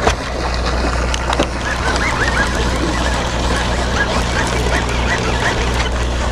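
Sportfishing boat's engine running with a steady low hum, with a series of about a dozen short, high cries that rise and fall, from about two seconds in to just past five seconds.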